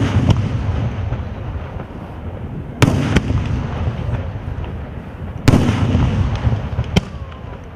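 Daytime fireworks shells bursting overhead. One blast lands right at the start and loud bangs come about three and five and a half seconds in, each trailing a long low rumble. Near the end there is a sharper, lighter crack.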